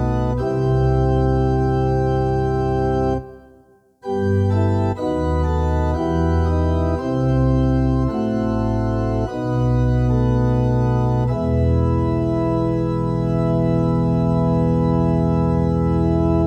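Yamaha NP-11 portable keyboard played on an organ voice: sustained chords changing every second or two. The sound breaks off briefly about three seconds in, then a final chord is held for the last five seconds.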